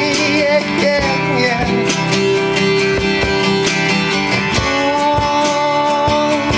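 Live one-man-band music: an acoustic guitar strummed over a steady beat of percussive hits, with long held melody notes that bend near the end.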